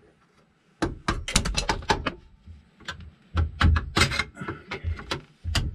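Clusters of rapid metallic clicks and knocks from a steel clutch return spring being worked onto the clutch arm of an air-cooled VW transmission. It is quiet for about the first second, then come three bursts of clicking with low thuds underneath.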